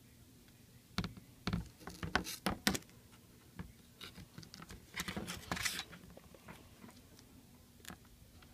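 Close handling noises as double-sided tape is laid onto an iPad 2's frame: a quick run of sharp clicks and scratches about a second in, then a rustling, scraping stretch around the middle, with a few light ticks in between.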